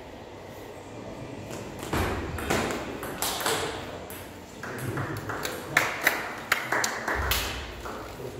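Table tennis ball being struck back and forth in a rally, sharp clicks of ball on bat and table. The hits come in two runs, the later one quicker and louder, from just past the middle to near the end.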